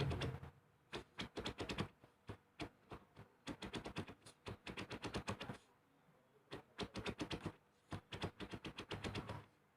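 Rapid bursts of scratchy clicking, about eight to ten clicks a second, stopping for a moment about six seconds in: a dog's claws scratching and digging at a couch.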